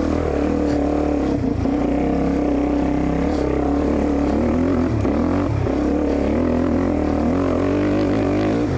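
Dirt bike engine running at steady mid revs, its pitch wavering up and down a little as the throttle is worked.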